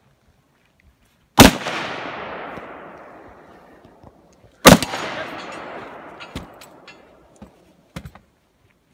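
Two gunshots about three seconds apart, each followed by a long echo rolling away across the range. A few fainter sharp clicks and knocks come near the end.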